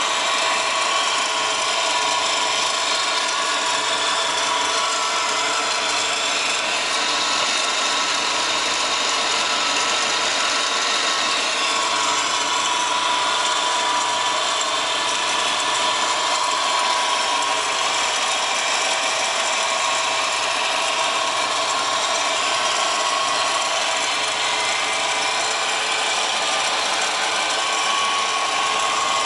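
Subaru WRX GDB engine running with a steady mechanical whirr and a constant whine: the noise of a bad A/C idler pulley.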